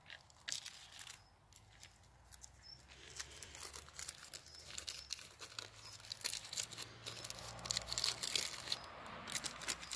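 Paper pollen bag being handled, crinkling and rustling in quick, irregular crackles that grow denser and louder from about three seconds in.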